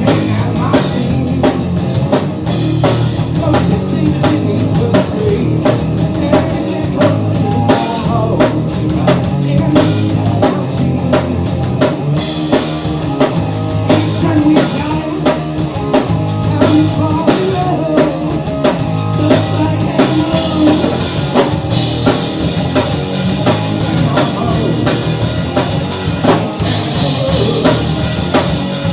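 Rock music with a driving drum kit and guitar. About twenty seconds in, the sharp separate drum hits give way to a steady cymbal wash.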